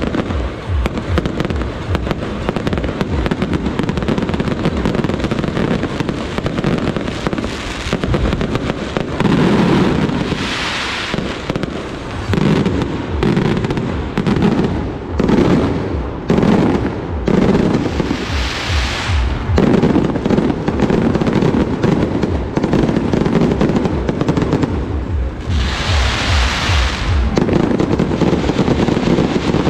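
Fireworks display going off in a dense, continuous run of rapid bangs and crackling. Three longer rushes of hiss rise over it: about a third of the way in, about two-thirds in, and near the end.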